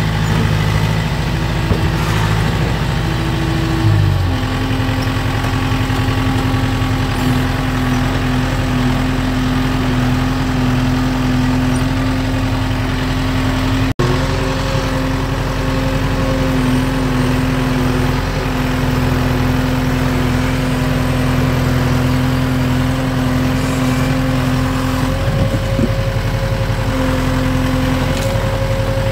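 Kubota M5040 tractor's four-cylinder diesel engine running steadily, heard from the operator's seat while the front loader works. The engine's note changes about four seconds in.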